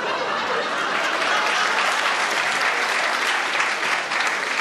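Audience applauding and laughing: many people clapping steadily.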